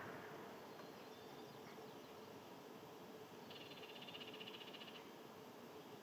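A faint, short, rapid trill, about a second and a half long, a little past halfway through, over quiet outdoor background.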